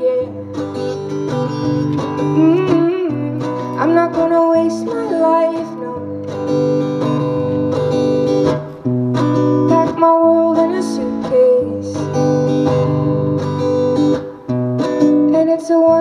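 A woman singing live while strumming a steel-string acoustic guitar, with the voice gliding over regular chord strums.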